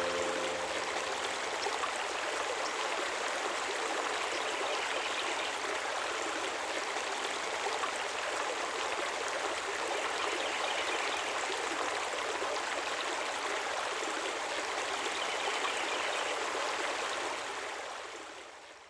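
A stream's water running steadily, an even rushing that fades out over the last couple of seconds.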